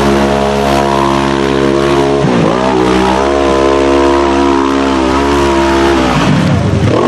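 Off-road vehicle engine held at high revs. Its pitch dips sharply about two seconds in and climbs straight back, and the engine sound cuts off near the end.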